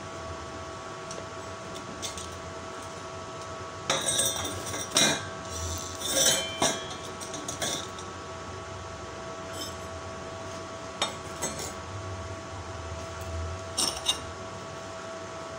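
Thin steel strip pieces of hexagonal paving-block moulds clinking and scraping as they are handled and set down on a metal worktable, in clusters of sharp clanks about four seconds in and twice more near the end, over a steady machine hum.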